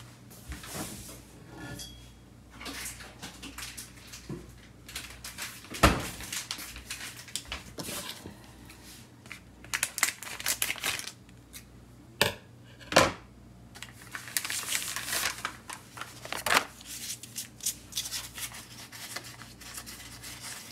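Kitchen handling noises: scattered clicks, taps and the rustle of baking paper and dough, with several louder knocks like dishes or utensils being set down.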